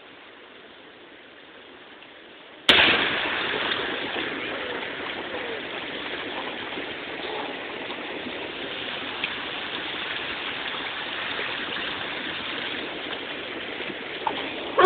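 Sea surf washing in over the shallows: a sudden rush of water about three seconds in that goes on as a loud, steady wash, after a faint hiss before it.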